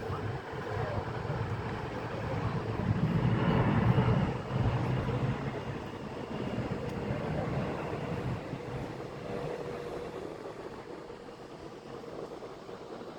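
Jet airliner engine noise, a broad rumble that swells to its loudest about four seconds in and then slowly fades.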